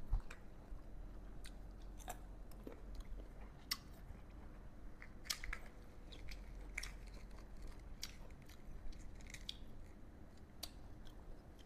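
Close-up chewing and crunching of crisp unripe green mango, with sharp crunches at irregular intervals, about one a second.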